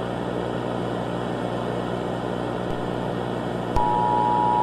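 Steady static hiss with a low hum. About four seconds in, a click, then the two-tone Emergency Alert System attention signal starts and holds steady.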